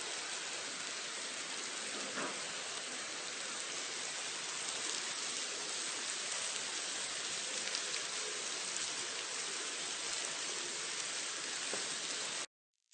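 Ant sound effect: a dense, steady hiss with faint specks of crackle, cutting off abruptly near the end.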